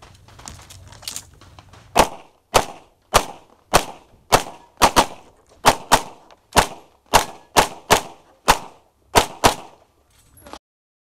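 Open-division 9mm major race pistol with a red-dot sight fired rapidly, close to the microphone: about sixteen shots, starting about two seconds in, mostly a little over half a second apart with a couple of quicker doubles.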